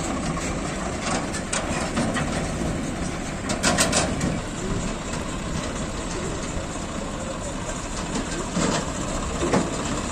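Heavy farm diesel engines running steadily, with a few short metal clanks and knocks; a cluster of them comes about four seconds in.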